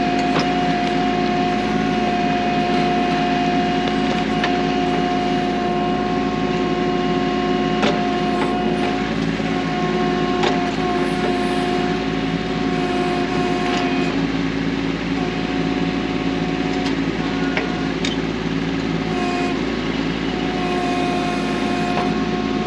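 Kubota B2650 tractor's diesel engine running steadily while its BH77 backhoe digs, with a higher whine that comes and goes and a few sharp knocks.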